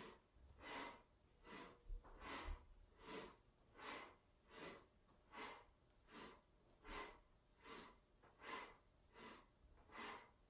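Faint, rapid rhythmic breathing by a woman doing a yoga kriya: sharp inhales and exhales alternate evenly, about one breath every three-quarters of a second, paced by side-to-side twists with the hands on the shoulders.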